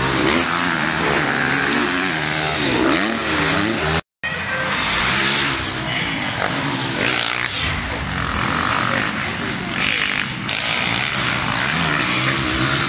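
Several motocross bike engines revving hard, their pitch rising and falling as they race past over one another. The sound cuts out completely for a moment about four seconds in.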